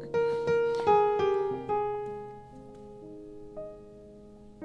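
Background music of piano notes, a quick run of ringing notes in the first two seconds that then fades out to a single soft note.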